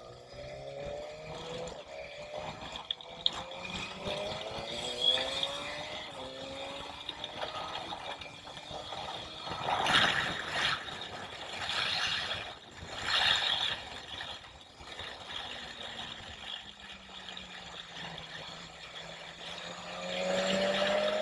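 BMW S1000XR's inline-four engine pulling away through the gears, its pitch climbing and dropping back at each of several upshifts. Loud gusts of wind noise rush over the microphone at speed midway through. Later the engine note falls away and climbs again through a curve.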